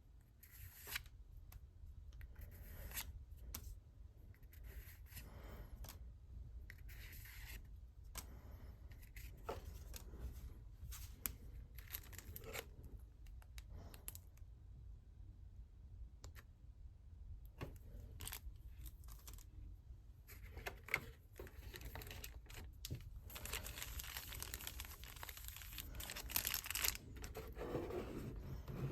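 Pokémon trading-card packaging being torn open and handled: scattered tearing, rustling and small clicks, growing into denser crinkling near the end.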